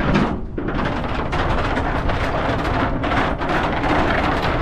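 Wind buffeting the microphone of a bike-mounted action camera while riding, a heavy low rumble with a dense rushing hiss that builds about half a second in, broken by many short knocks and rattles from the bike over the road surface.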